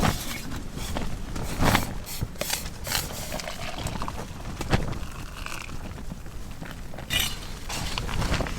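Scattered light clinks and knocks of camping cookware and stove being handled, over a steady low rumble of wind, which runs at a constant 20 miles an hour or so.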